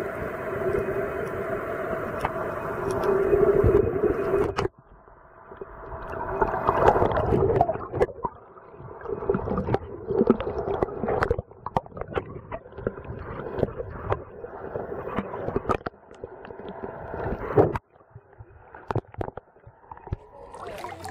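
Muffled underwater sound picked up by a submerged camera: water noise and gurgling with many short clicks and knocks. The sound changes suddenly about four and a half seconds in and drops again near the end as the camera comes up to the surface.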